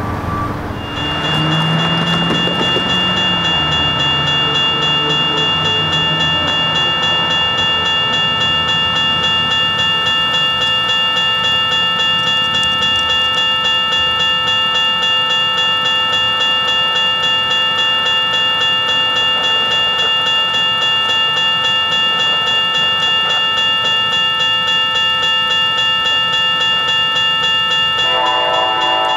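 Railroad grade-crossing bell ringing rapidly and steadily as the crossing activates for an approaching train. It starts about a second in. Near the end a train horn begins to sound.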